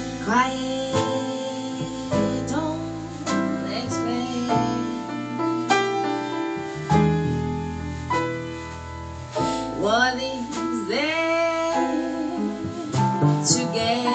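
Live small-band jazz ballad: piano and low bass notes under a melody line that slides up and down between notes.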